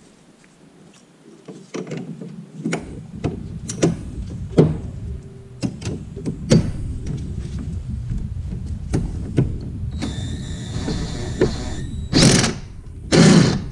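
Socket wrench work on a bolt in a car's engine bay: after a quiet couple of seconds, a run of sharp metal clicks and knocks as a 19 mm socket on an extension is tried on the bolt, then a rattling stretch and two louder noisy bursts near the end.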